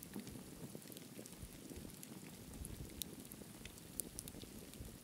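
Campfire crackling: scattered sharp pops and snaps over a low, steady rumble of the burning wood, with a couple of louder pops about three and four seconds in.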